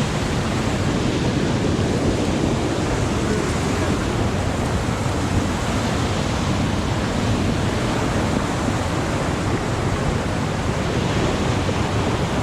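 Steady rush of a large spring-fed waterfall, Thunder River gushing out of the canyon wall, heard up close.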